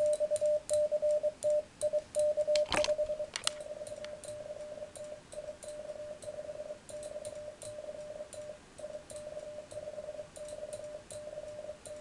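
CW (Morse code) sidetone from an Elecraft K3 transceiver: a single steady tone keyed on and off in dots and dashes as the operator sends by hand. It is louder for the first three seconds and softer after, with light clicks throughout and a sharper click near three seconds in.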